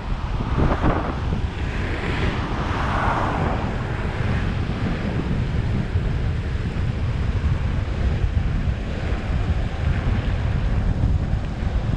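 Wind buffeting the microphone at downhill speed, over the rumble of longboard wheels rolling on asphalt.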